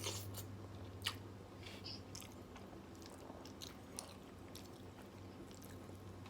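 A person chewing food close to the microphone: soft, scattered mouth clicks and smacks, with a sharper click about a second in and another about four seconds in, over a steady low hum.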